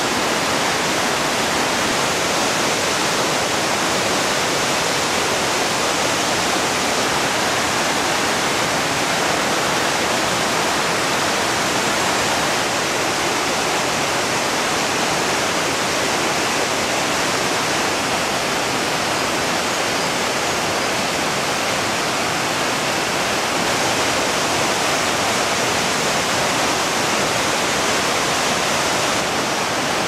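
Steady, unbroken rush of Shirahige Falls, white water cascading over rocks into a fast river.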